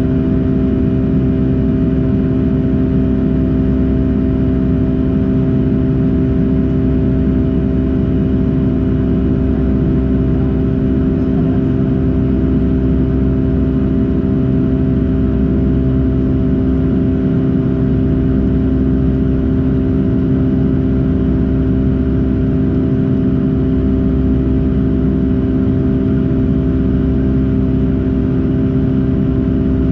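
Boeing 757-200 jet engines heard from inside the passenger cabin: a steady, loud drone with a low rumble and a few constant hum tones, unchanging throughout.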